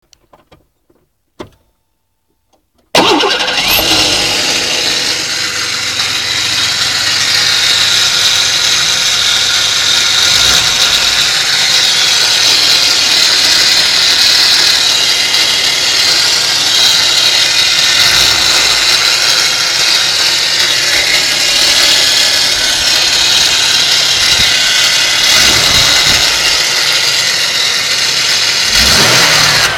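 1992 Ford Taurus's 3.0-litre Vulcan V6 starting about three seconds in and then running with a terrible, loud grinding and clattering noise. The owner places it on the right side within the engine block, and it is there even with the alternator and serpentine belt removed.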